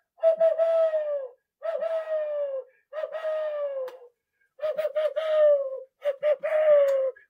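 Owl hoots imitated by blowing into cupped hands: five long hooting notes of about a second each, each sliding slightly down in pitch, the later ones opening with a few quick short notes.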